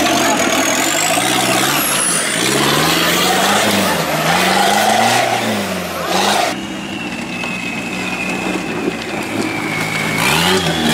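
Off-road competition 4x4 engines revving hard in repeated rising and falling surges as the vehicles claw up a steep dirt bank. About two-thirds of the way through it drops to a quieter stretch with a steady high whine, and the revving picks up again near the end.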